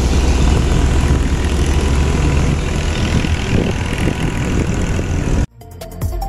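Steady engine and road rumble of a car climbing a mountain road, heard from inside the car, strongest in the low end. It cuts off suddenly about five and a half seconds in, and background music starts.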